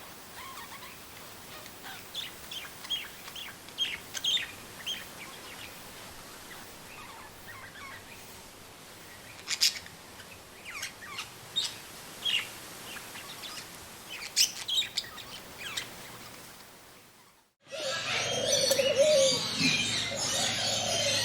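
Wild songbirds chirping in short, scattered calls over a faint steady hiss. About seventeen seconds in, the sound cuts out for a moment and a louder, busier passage starts.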